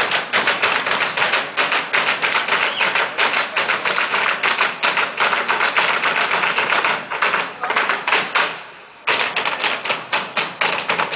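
Folklórico dancers' zapateado: shoes stamping a rapid, even train of sharp taps on the stage floor. The stamping breaks off briefly about eight and a half seconds in, then starts again.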